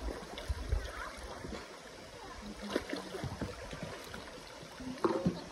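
Shallow stream flowing over rocks, with light splashing as hands move in the water and a louder splash near the end.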